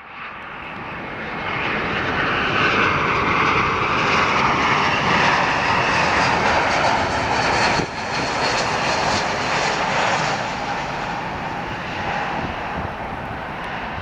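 Jet engines of an American Airlines Airbus A321 passing, a steady roar that swells in over the first two seconds, stays loudest through the middle, then slowly fades.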